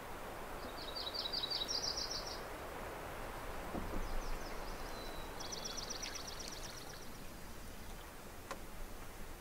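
A small songbird singing two rapid, high trills a few seconds apart, over a steady hiss of water moving along a canoe, with a soft knock about four seconds in.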